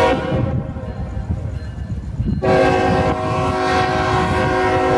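Diesel locomotive air horn blowing a chord. A short blast ends just as the sound begins, and a long blast starts about two and a half seconds in and is still held at the end. This is the crossing warning of the approaching freight train, over the low rumble of its locomotives.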